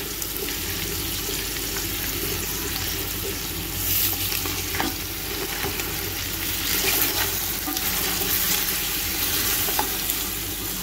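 Boiled chicken pieces and ginger-garlic paste sizzling as they fry in oil in a metal pot, stirred with a spatula that scrapes along the pot now and then.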